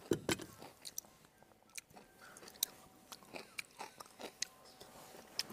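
A man eating rice with chopsticks: quiet chewing with scattered light clicks as the chopsticks touch the bowl and the wok.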